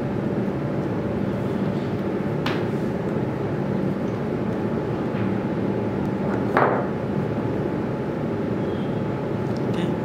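Steady background hum and hiss, with a few small clicks of hand pliers working orthodontic wire. The sharpest click comes about two-thirds of the way through.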